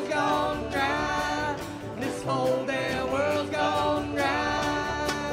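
Live bluegrass-style song with sung vocals, several voices in harmony, over banjo and guitar backing.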